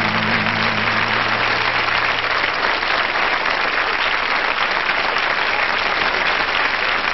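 Audience applauding steadily at the end of a stage act, with the last low notes of the backing music ending about two and a half seconds in.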